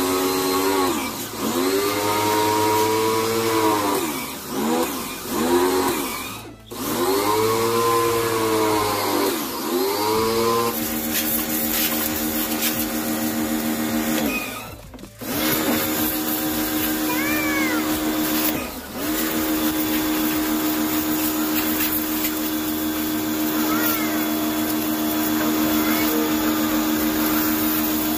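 Black+Decker electric pressure washer motor running under the hiss of its water spray. For about the first ten seconds its pitch rises and falls in several short swells. After that it runs at a steady pitch and cuts out briefly three times.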